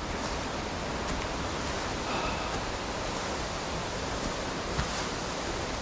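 Waterfall on a small burn, its water rushing steadily over rocks as an even roar.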